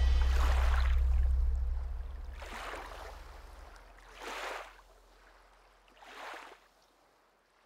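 The soundtrack's deep closing bass note fades out, under four short washes of sea waves about two seconds apart, each fainter than the last, the final one about six seconds in.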